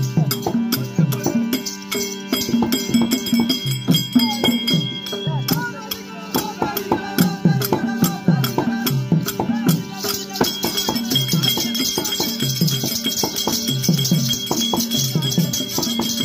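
Tamil Therukoothu folk-theatre accompaniment: a harmonium holds steady tones over a repeating low beat, with a continuous jingling rattle of small bells or cymbals that turns brighter about ten seconds in.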